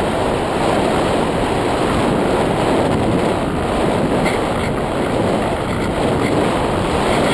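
Steady rushing wind noise on the microphone of a camera riding on a flying model paraglider.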